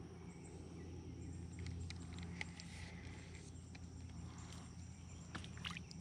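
Faint, steady, high-pitched insect chirring over a low hum, with a few small clicks and taps, most of them in the second half.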